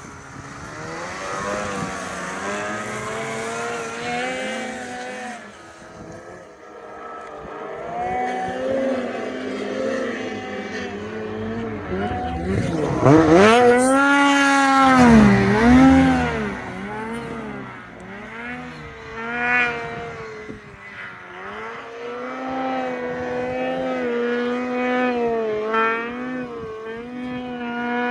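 Snowmobile engine revving as a sled climbs a steep hill, its pitch rising and falling with the throttle. It swells to its loudest a little before halfway through, then settles into a steadier drone.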